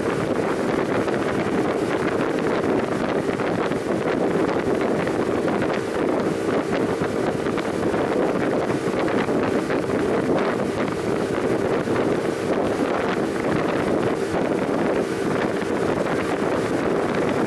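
Steady drone of a moving boat's engine, mixed with wind rushing over the microphone.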